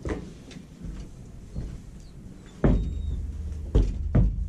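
A horse's hooves thudding on a horse trailer's floor as it is led up and steps aboard: a few light knocks, then three heavy thumps from about halfway through.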